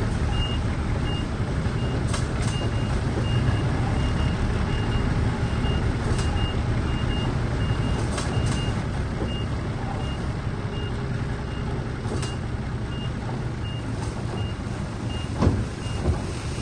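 Heavy earthmoving machine's backup alarm beeping steadily, about two beeps a second, over a diesel engine running under load. A few sharp metallic clanks come through, with a louder knock near the end.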